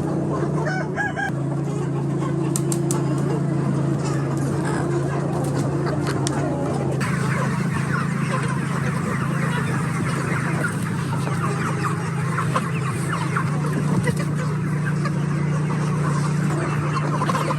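A flock of chickens clucking and calling, many short overlapping calls over a steady low hum. The mix of calls changes abruptly about seven seconds in and becomes busier.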